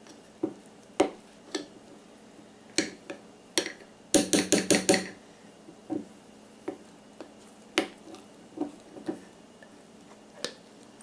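Spoon clinking and knocking against the inside of a glass mason jar while stirring thick flour and water into a sourdough starter. Irregular single taps, with a quick run of about six strikes about four seconds in.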